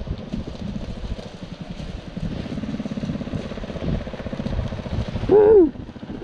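Trail motorcycle engine running steadily at low to moderate revs while riding a dirt track. About five seconds in there is a brief, loud pitched sound that rises and then falls.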